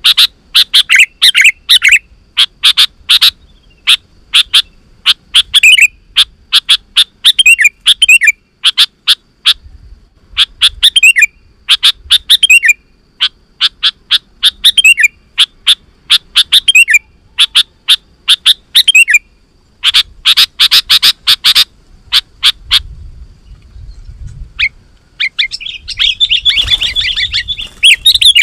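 Sooty-headed bulbul (kutilang) calling loudly and repeatedly, in short phrases of sharp, quickly falling notes about every two seconds. Near the end the calls run together into a denser, busier chattering.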